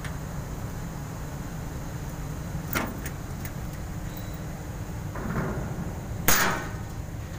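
Two sharp knocks, about three and a half seconds apart, the second louder and ringing briefly, over a steady low hum.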